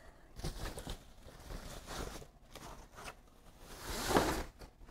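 Rustling and sliding of a thin white protective wrap as a computer monitor is drawn out of it in its box, in irregular scrapes with the loudest rustle about four seconds in.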